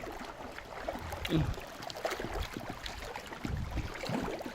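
Small waves lapping at the lake's edge, with gusts of wind buffeting the microphone in a few low thumps.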